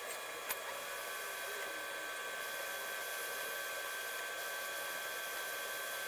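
Hot air rework station blowing a steady hiss with a thin, constant whine, reflowing solder balls onto a circuit board's traces at 380 °C. A single short click about half a second in.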